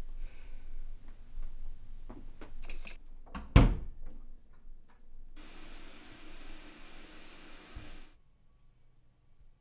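A door shutting with a loud thud about three and a half seconds in, after a few faint clicks and knocks. Then a steady hiss runs for nearly three seconds and cuts off suddenly.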